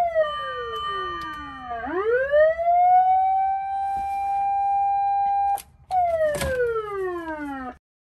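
Fire truck siren holding a steady high wail, then winding slowly down to a low pitch and sweeping quickly back up to hold the high tone again. It breaks off briefly about five and a half seconds in, comes back high and winds down once more before cutting off just before the end. A short sharp click sounds about six and a half seconds in.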